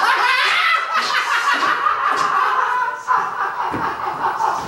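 People laughing continuously, with a short dip about three seconds in.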